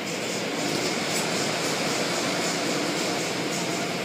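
Automatic car wash heard from inside the car: spinning cloth brushes sweeping across the body and glass while water sprays, a steady rushing noise.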